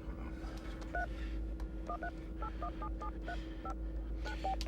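Touch-tone phone keypad being dialed: about eleven short two-note beeps, one per key press, at an uneven pace, over a steady low hum.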